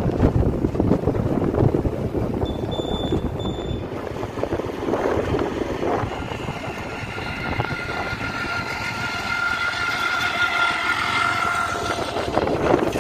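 Vehicle noise, an uneven low rumble. Two short high beeps sound about three seconds in, and a steady pitched tone with several overtones comes in about six seconds in and holds for about six seconds.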